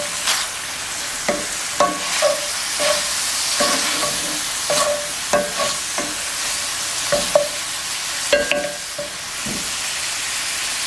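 Ground chuck and diced onion sizzling in a cast-iron skillet while a plastic meat-chopper tool breaks the meat up, knocking and scraping against the pan with short ringing clicks at irregular intervals. The knocks stop about nine and a half seconds in, leaving only the sizzle.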